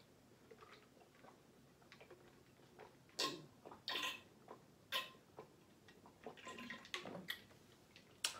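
Close-up eating sounds: a person chewing and smacking their lips, heard as a handful of short, wet clicks spaced a second or so apart.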